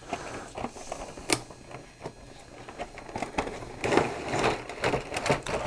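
Toy packaging being handled: a cardboard inner tray sliding out of its box and a clear plastic blister pack being lifted, giving scattered clicks and rustling, with one sharp click about a second in and busier handling from halfway on.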